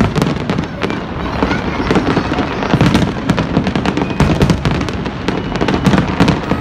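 Fireworks display in full barrage: shells bursting and stars crackling in a rapid, continuous run of bangs and pops over a low rumble.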